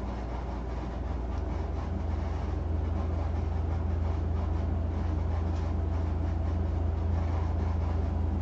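A steady low hum that grows louder about a second in and again near three seconds, with faint soft ticks and rustles over it.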